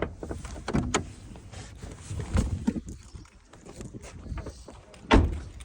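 Opel Astra J's bonnet being opened: several small clicks and clunks from the release and latch, then one loud thump about five seconds in.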